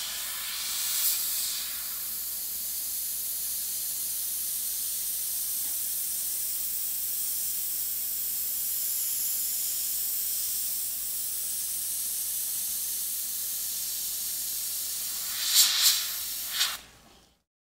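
Iwata HP-CS Eclipse gravity-feed airbrush spraying paint: a steady high-pitched hiss of compressed air through the nozzle, with louder spurts at the start and again near the end as the trigger is worked, then it cuts off shortly before the end.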